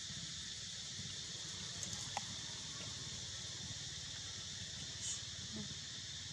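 Steady, high-pitched drone of insects in the trees, with a couple of faint clicks about two seconds in.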